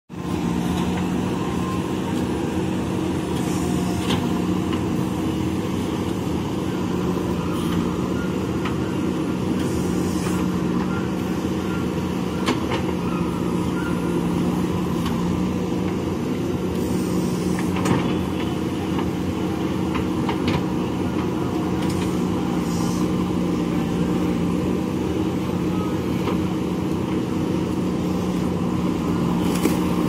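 Diesel engine of a JCB backhoe loader running steadily under load while the backhoe digs mud, with occasional short knocks.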